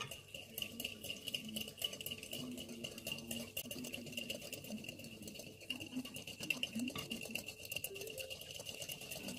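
Faint scattered crackling ticks as fresh yeast is crumbled by hand into a glass mixing bowl, over a steady high-pitched whine.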